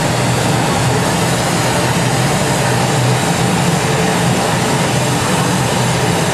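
Steady, unchanging roar of a handheld gas torch flame heating a hot glass sculpture, over a constant low hum.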